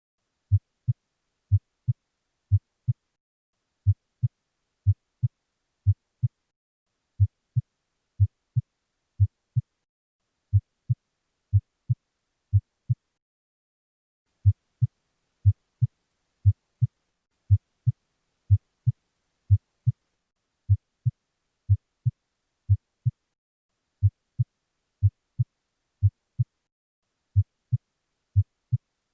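Normal heart sounds: paired lub-dub beats at about one a second, the first thump of each pair a little louder. The lub (S1) is the mitral and tricuspid valves closing, and the dub (S2) is the aortic and pulmonic valves closing, with no murmur between them. The beats break off for about two seconds near the middle.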